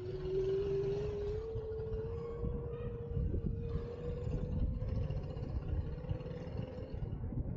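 Car driving with a steady engine hum that rises slowly in pitch as it gathers speed, over low wind rumble on the microphone.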